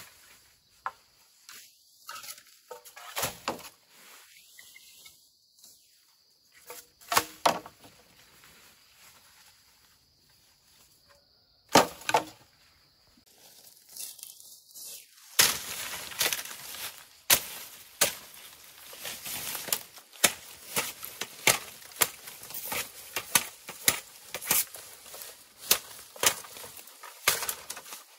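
Irregular sharp knocks and taps, scattered at first and coming thick and fast, about one or two a second, from about halfway through.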